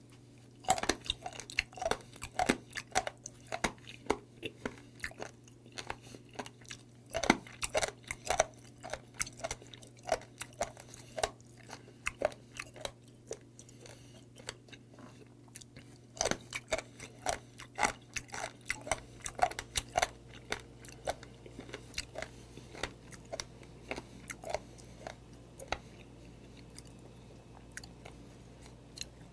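Close-miked mouth sounds of a person chewing mideodeok (stalked sea squirt): wet, crunchy clicking bites, busiest over the first several seconds and again from about 16 to 21 seconds, thinning out toward the end. A steady low hum runs underneath.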